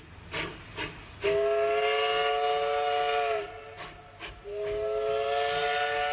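Steam locomotive whistle blown twice, each blast a chord of several notes sounding together and held for about two seconds, with a slight drop in pitch as the first one cuts off. Two short puffs of steam come before each blast, and the second blast starts about halfway through.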